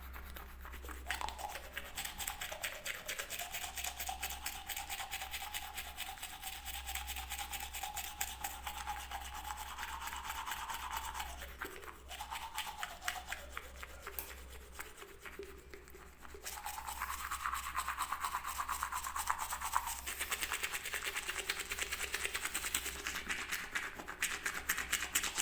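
Toothbrush scrubbing in fast, even back-and-forth strokes. It drops out briefly about twelve seconds in, goes quieter for a couple of seconds, then picks up louder again.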